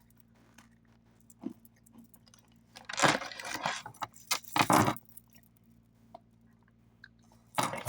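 Snacks being handled and crunched: two loud crunching, crinkling noises about three and four and a half seconds in, with small scattered clicks and taps between them.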